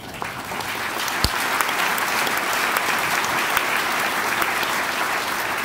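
Audience applauding, rising quickly at the start and easing off near the end, with one sharp knock about a second in.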